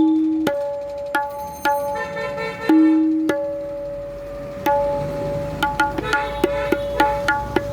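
Hand-made tabla being played to demonstrate its tone: open strokes ring out at a steady tuned pitch, with a couple of deeper strokes near the start and around three seconds in. From about five seconds in it breaks into a quicker run of crisp strokes.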